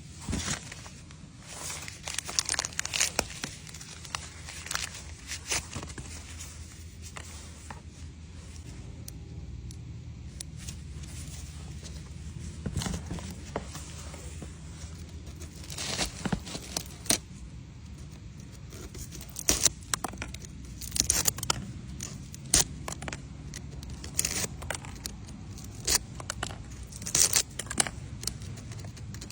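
Packaging being handled and opened: irregular crinkling, tearing and sharp clicks in bunches, over a steady low hum.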